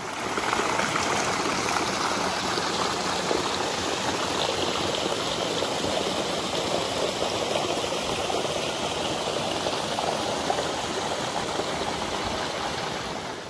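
Steady rush of running water: an even, unbroken hiss of flowing water with no distinct splashes or tones.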